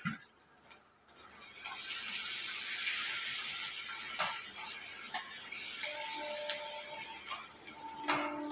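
Sliced onions sizzling in hot oil in a non-stick wok while a spatula stirs them, knocking against the pan five or so times. The sizzle swells about one and a half seconds in and then holds steady.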